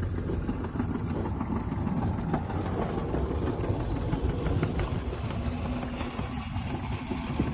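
Manual pallet jack rolling a loaded pallet over rough concrete: a steady, low rattling of its wheels.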